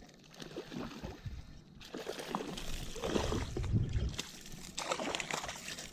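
Hooked salmon splashing at the water's surface as it is reeled in to the bank, in irregular sloshes.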